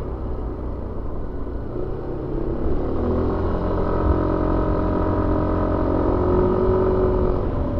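Suzuki Avenis 125 scooter's single-cylinder engine heard from on board while riding. The engine eases off at the start, then the throttle opens about three seconds in and the note climbs and holds steady.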